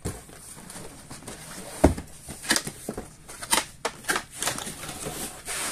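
A cardboard air-rifle box being handled and opened: its flaps pulled and folded back, with irregular scraping and rustling of cardboard and a dull thump about two seconds in.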